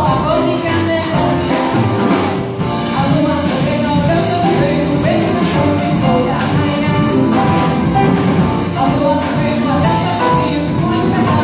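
Live band of drums, double or electric bass, piano and hand percussion playing an energetic Brazilian tune, with a sung vocal line over the busy rhythm.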